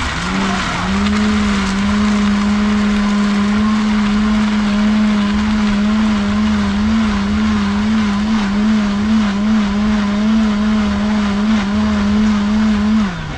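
Countertop blender motor running at high speed through a thick fruit smoothie while a tamper is pushed down into the jar. A loud steady hum that spins up at the start, its pitch wavering slightly, then drops away as it is switched off near the end.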